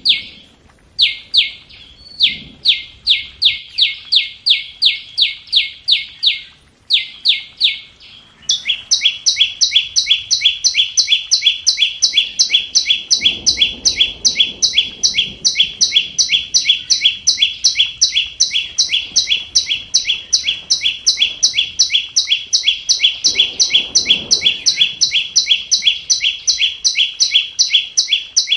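Flowerpecker (chim sâu) call: a long, evenly repeated series of identical sharp, high chip notes, about three a second with two short breaks, then quickening to about four a second without pause from about a third of the way in, as played from a trapping lure recording.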